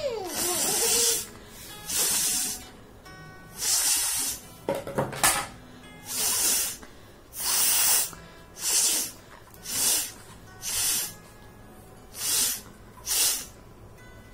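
A person forcing air hard through the nose again and again: about eleven short hissing blasts roughly a second apart, one of them about five seconds in with a brief snorting tone.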